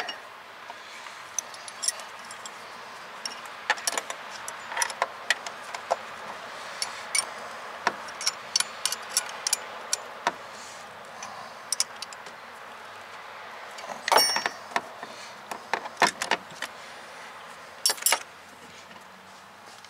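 Metal hand tools clinking and clicking as pliers, wrenches and a brake-line flaring bar are handled and set against one another on the floor pan, with scattered sharp clinks throughout. A cluster of louder clinks comes about fourteen seconds in and another near the end.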